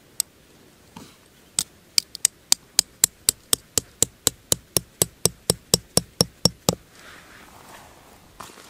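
A hammer driving a metal tent stake into the ground: three spaced strikes, then a steady run of sharp metallic strikes at about four a second that stops a couple of seconds before the end.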